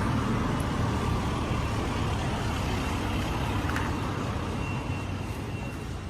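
Road traffic: a motor vehicle going past, a steady rushing noise that slowly fades as it moves away.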